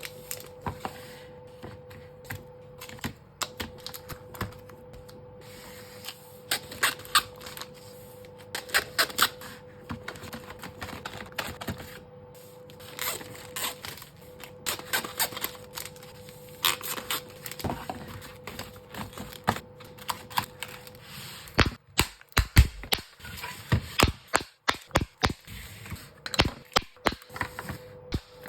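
Plastic containers and food items clicking and clacking as they are handled and set on refrigerator shelves, in quick irregular runs of taps and knocks. A steady faint hum sits underneath and stops about three-quarters of the way through.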